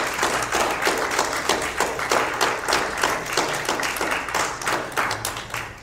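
Audience applauding: many hands clapping steadily, dying away at the very end.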